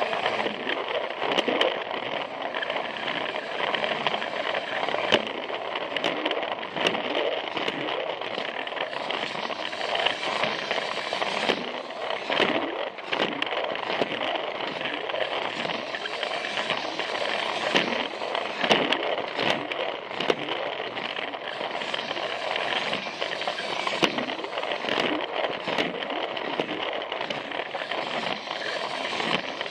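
Plarail toy train's small battery motor and plastic gearbox running steadily, with an irregular clicking rattle as its wheels run over the plastic track.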